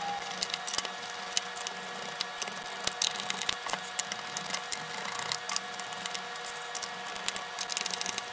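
Small Phillips screwdriver turning out the bottom case screws of a Dell Inspiron 14 7460 laptop: a steady run of light, irregular clicks and ticks of the bit in the screw heads against the metal case.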